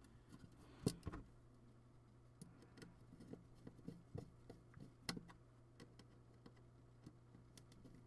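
Faint, scattered clicks and ticks of a small screwdriver turning a screw into a jumper terminal on a keypad controller circuit board, with the board being handled. The sharpest click comes about a second in, another about five seconds in.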